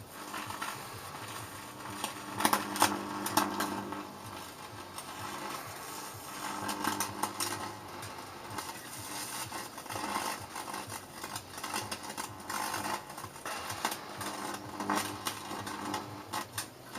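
High-voltage arc from a ballasted microwave oven transformer burning into an electronic part: a steady mains buzz with irregular crackles and snaps, the sharpest about two to three seconds in.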